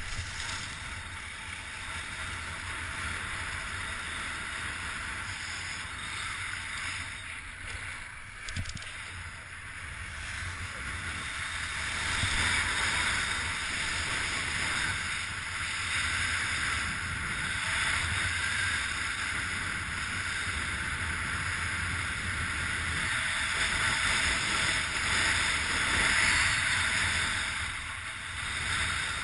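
Steady rushing wind noise on the microphone while kite skiing in strong wind, with the hiss of skis running over snow, getting louder about twelve seconds in.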